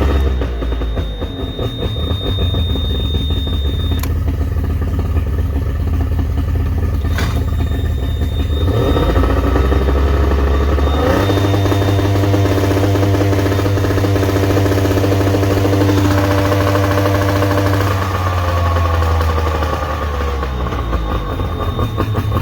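A 2005 Tohatsu 40 hp outboard motor running with a freshly replaced water-pump impeller. Its revs climb about nine seconds in, hold steady for several seconds, then drop back to idle near the end. Two sharp clicks come in the first half. It runs smoothly, a sign the motor is healthy after the repair.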